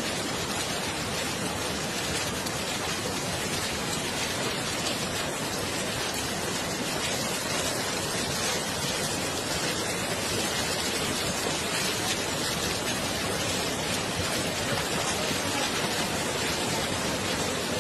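Steady hiss of heavy rain from a torrential thunderstorm.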